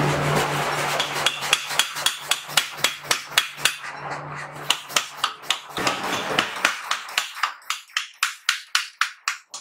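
75 kg mechanical power hammer pounding a red-hot steel axe billet in a fast, even run of blows, about four a second, over the hum of its running drive. The blows get lighter toward the end.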